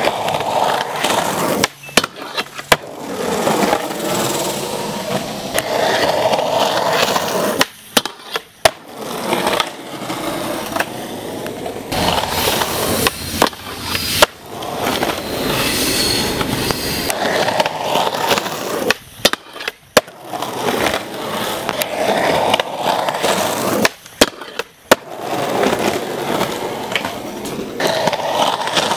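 Skateboard wheels rolling over rough concrete, broken again and again by sharp clacks of the board popping and landing, in several short takes with brief gaps between them.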